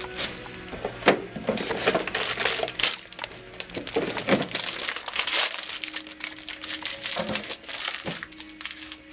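Plastic wrap and packaging crinkling and rustling in gloved hands, with irregular knocks of items being handled, over background music.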